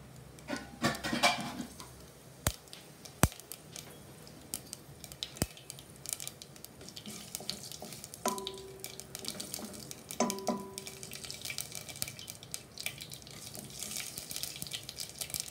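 Mustard, urad dal, cumin and fenugreek seeds spluttering in hot oil, with sharp pops scattered throughout and a sizzle that builds toward the end as they are stirred with a wooden spatula. The popping mustard seeds show the tempering oil is hot and the seasoning is ready. Two brief ringing clinks come about eight and ten seconds in.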